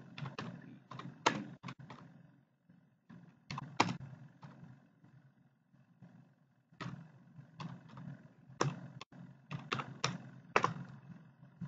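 Typing on a computer keyboard: quick keystroke clicks in bursts, with a pause of about two seconds in the middle.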